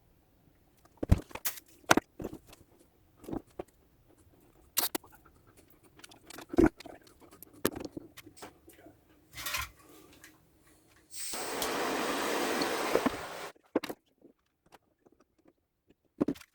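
Small clicks and knocks of metal parts and tools being handled, then a gas blowtorch flame hissing steadily for about two seconds before cutting off, heating the fuel tap for soldering.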